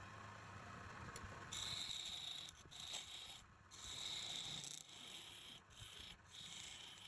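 A series of hissy rubbing strokes, each lasting up to about a second with short gaps between them.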